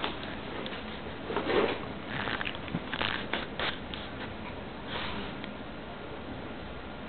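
Cairn Terrier sniffing in several short bursts close to the microphone.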